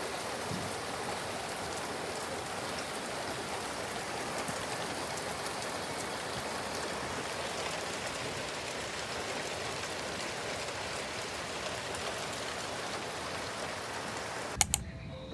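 Steady rain, an even hiss of drops with faint fine ticks, that cuts off suddenly near the end, followed by a couple of sharp clicks.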